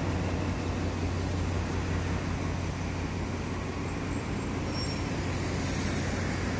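TCDD DE 24325 diesel-electric locomotive's engine running steadily while the locomotive stands, a constant low hum, mixed with road traffic noise.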